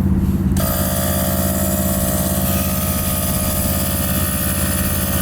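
Car engine running with a steady low drone, mixed with road noise.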